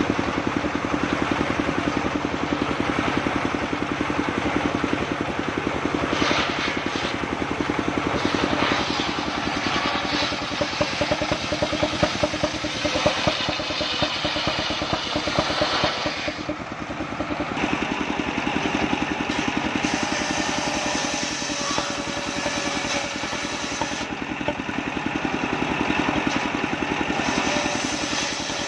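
An engine-driven table circular saw running steadily while its large blade rips through mahogany. The engine's fast, even chug runs under it all, and the cutting comes in two long passes, about 6 to 16 seconds in and again from about 20 seconds on, with a short lull between them.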